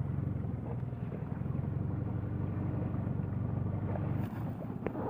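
A sailboat's engine running steadily under way, a low, rapidly pulsing sound.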